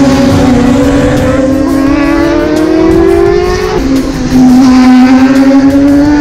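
Racing motorcycle engine under hard acceleration, loud, its pitch climbing steadily. It drops sharply at an upshift about four seconds in, then climbs again.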